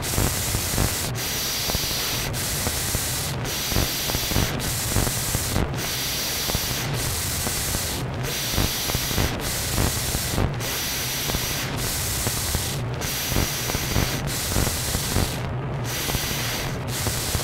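Steady scratchy hiss and rustle of an old camcorder tape recording, with a brief dip in the top end about once a second.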